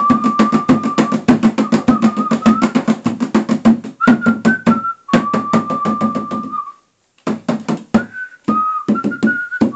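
Djembe-style hand drum played in rapid strokes, with a whistled tune of held notes over the drumming. The drumming breaks off about seven seconds in, then resumes in sparser strokes under the whistling.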